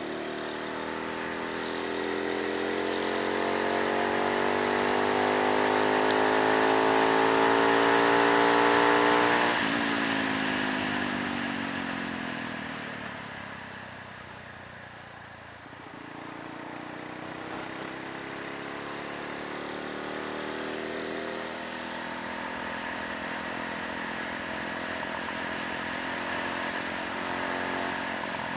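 Honda MSX125's single-cylinder four-stroke engine, fitted with a 31 mm throttle body, a performance camshaft and an open intake, pulling up through the revs for about nine seconds. The throttle then closes and it runs down, before picking up again more gently and holding a steady cruise, with wind rush over it.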